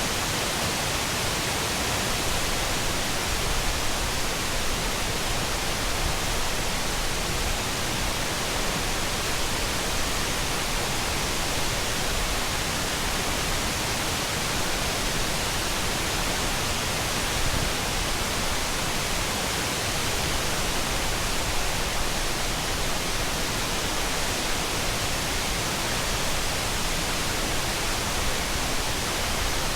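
Steady rushing of Oshinkoshin Falls, a waterfall's falling water making an even, unbroken noise that does not change.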